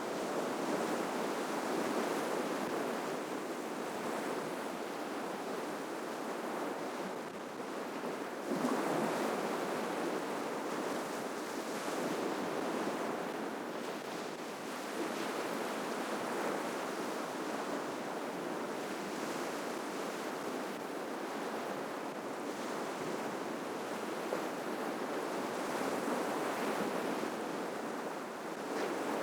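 Ocean surf washing onto the shore in a steady, unbroken hiss and rumble. It swells louder as waves break, most plainly about nine seconds in and again near the end.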